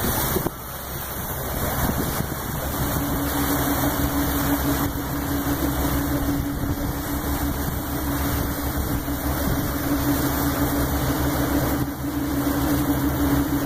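Tour boat's engine running steadily, a low rumble, with a steady hum coming in about two and a half seconds in.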